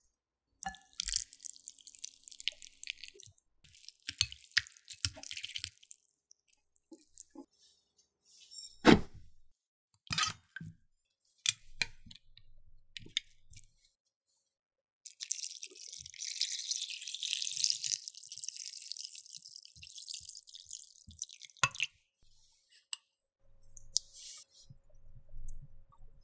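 Water running and dripping into a bowl in stretches as raw oxtail is soaked to draw out the blood, with light clinks and knocks of the pieces and the bowl. One heavy thump comes about nine seconds in.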